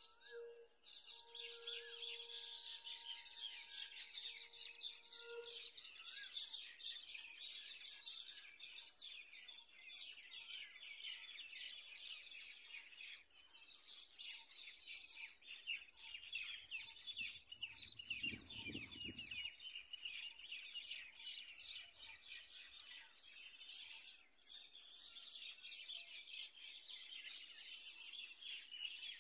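Many small birds chirping and twittering together in a dense, continuous chorus, with a brief low rumble about two-thirds of the way through.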